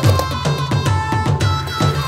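Background music with a regular drum beat and a held melody line.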